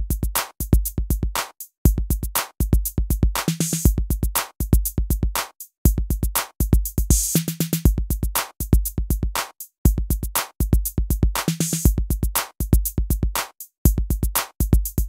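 Electronic music with a drum-machine beat and deep bass, cut into rapid stuttering pulses.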